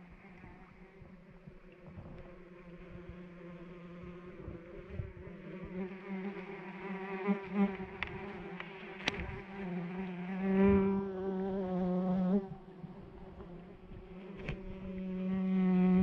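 A flying insect buzzing close to the microphone, a wavering hum that swells loud as it comes near, about ten seconds in and again near the end, and fades between.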